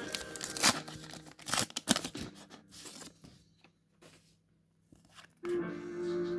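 A Pokémon card booster pack's wrapper being torn open, with a run of ripping and crinkling rustles for about three seconds. It then falls quiet, and a steady pitched tone starts near the end.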